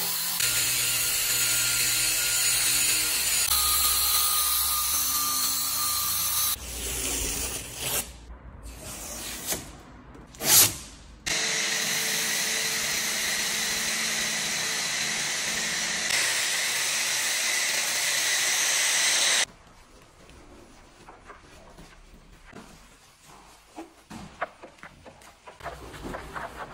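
Drill-driven detailing brush spinning against a car's chrome fog-light surround, a steady whir for several seconds. Later comes one loud short knock, then a steady spraying hiss that cuts off suddenly, leaving quieter soft rubbing of a wash mitt on wet paint.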